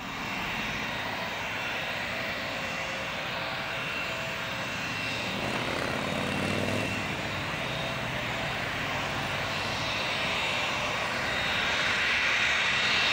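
Airbus A330-300's Rolls-Royce Trent 700 turbofan engines at approach power, a steady jet noise with a high whine, growing louder as the airliner comes closer on final.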